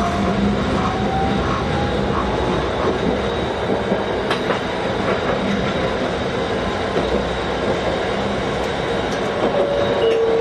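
Fukui Railway 770-series tram running on street track, heard from inside the cab: steady rolling noise with a few scattered clicks from the wheels and rails. A faint whine rises in pitch over the first two seconds, and a steady tone appears near the end.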